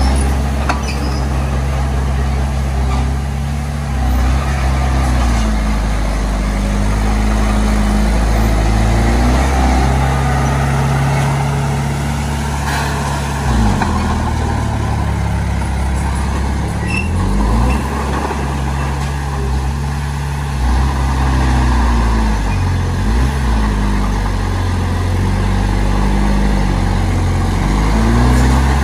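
Heavy-equipment diesel engine running loud and steady under working load, its pitch dipping and picking back up several times in the second half.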